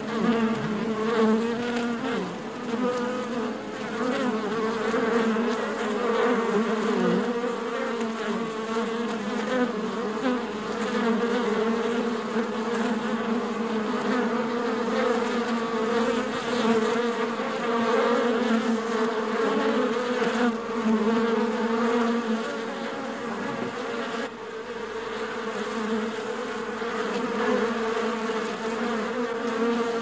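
Many honeybees buzzing together at a hive: a steady, dense hum that swells and eases a little in loudness.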